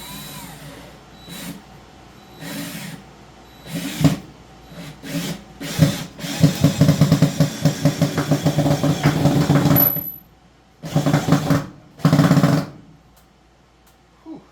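Power screwdriver driving screws into wood: several short bursts, then one longer run of about four seconds that pulses rapidly, then two more short bursts.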